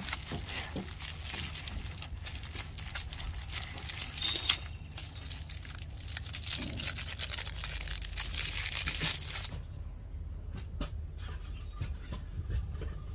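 Clear plastic wrapping crinkling and tearing as a digital meat thermometer is unwrapped by hand. The crackling stops about three-quarters of the way through, leaving only a few light clicks.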